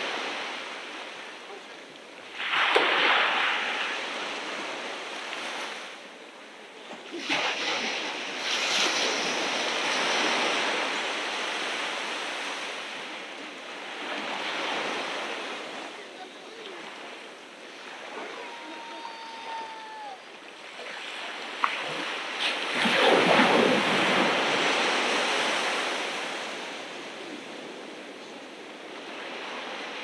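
Ocean surf washing onto the beach in repeated swells, the loudest surge a few seconds in and another about three-quarters through, with a steady hiss of water between them.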